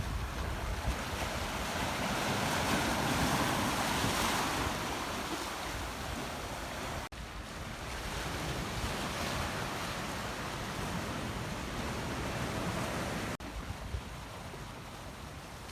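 Sea surf washing in with wind buffeting the microphone, a steady rushing noise. It breaks off sharply twice, about halfway through and again near the end, where the footage is cut.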